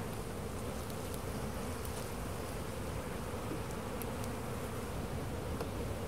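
Honeybees buzzing steadily over an open hive box, a steady hum from the colony, with a few faint ticks.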